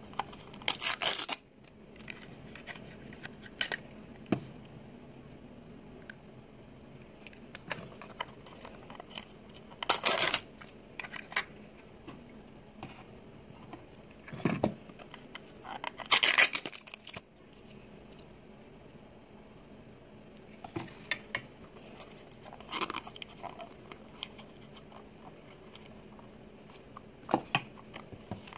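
Hands opening a Mini Brands toy capsule: three short bursts of foil blind bags crinkling and tearing open, with light clicks and taps of the plastic capsule halves and tiny plastic items in between.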